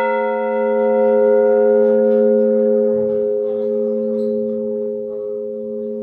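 A large church bell's long hum ringing out after a single strike, several tones sounding together and slowly fading with a gentle wavering.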